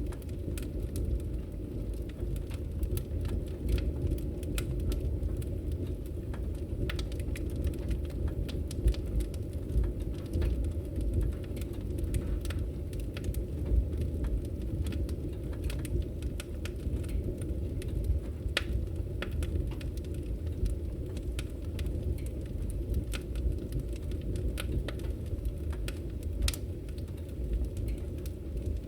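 Wood fire burning in a fireplace: a steady low rumble of flames under frequent, irregular sharp crackles and pops from the burning logs.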